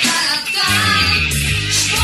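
Rock band music, with electric guitars over a sustained bass line.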